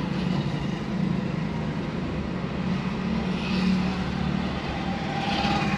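Steady running noise of a road vehicle on the move: engine and tyre noise, even throughout.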